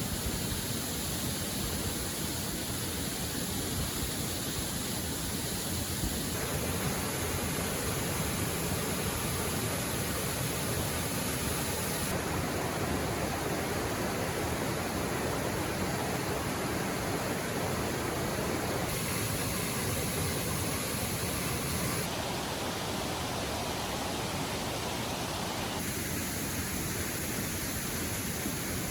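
Steady rushing of a river and waterfall. Its tone changes abruptly several times, brighter in some stretches and duller in others.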